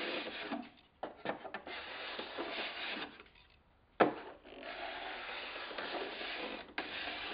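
Robo-Bevel, a miniature shoulder plane, shaving the top edge of a wooden boat strip in several rasping push strokes with short gaps, and one sharp knock about four seconds in.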